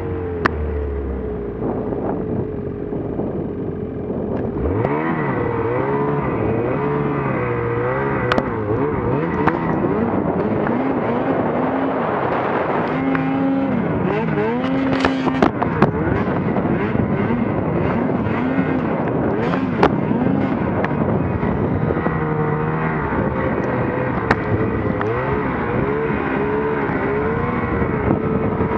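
Snowmobile engine running hard while ploughing through deep powder, its pitch rising and falling over and over as the throttle is worked.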